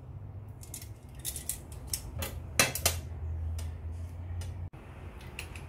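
Metal serving tongs and cutlery clinking and scraping against ceramic plates, a run of sharp clicks over the first three seconds, over a low steady hum.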